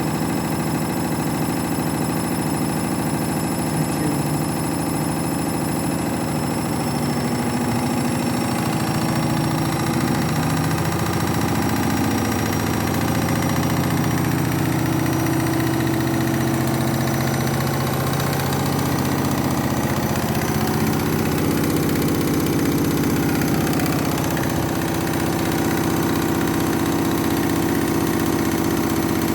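Washing machine in its 1200 rpm final spin with a heavily unbalanced load of towels: the motor whines steadily while the drum rumbles and vibrates. The whine climbs slightly in pitch a few seconds in as the drum speeds up.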